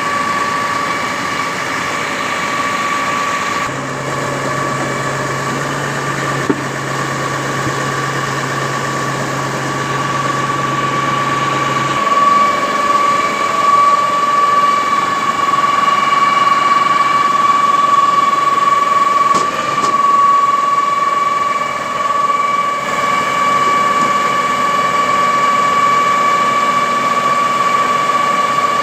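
Truck-mounted concrete boom pump's diesel engine and hydraulic system running steadily with a high, constant whine while the outriggers are retracted. A low hum joins it for several seconds, and the running grows louder about twelve seconds in.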